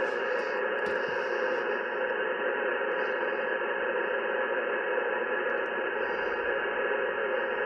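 Yaesu FT-710 transceiver receiving on 10-metre upper sideband with no signal on frequency: a steady hiss of band noise from its speaker, cut off sharply above about 3 kHz by the sideband filter.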